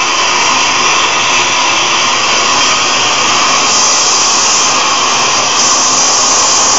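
Oxygen-propane torch flame burning with a steady, loud hiss while melting non-precious dental casting alloy in the crucible.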